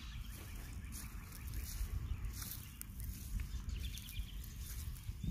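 Footsteps on dry pasture grass, a few irregular soft crunches, over a steady low rumble of wind on the phone's microphone.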